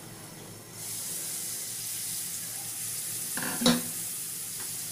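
Spices mixed in water poured into hot oil in a pan, bursting into a steady sizzle less than a second in. Near the end a single sharp, ringing clank of a steel utensil being set down.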